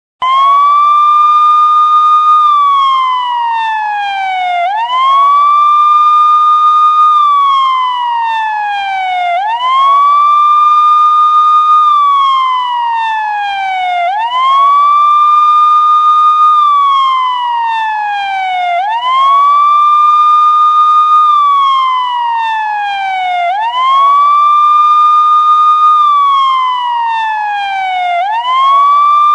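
Police siren wailing in a steady, repeating cycle. Each wail rises quickly, holds its high note for a second or two, then slides slowly back down, once every four to five seconds.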